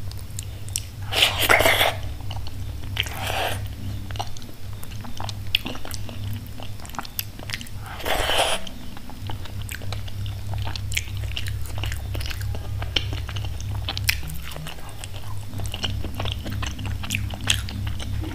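Close-miked eating of khichdi by hand: wet chewing and lip-smacking with many small mouth clicks, and three louder smacking sounds in the first half. A steady low hum runs underneath.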